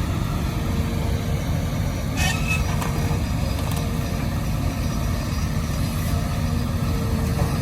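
Excavator's diesel engine running steadily, with a short clatter about two seconds in.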